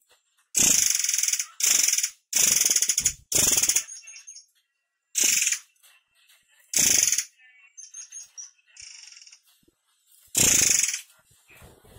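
Caged murai air mancur giving harsh, rasping calls: seven short bursts, four close together in the first few seconds, then single ones spaced out. Faint high thin whistles come between them.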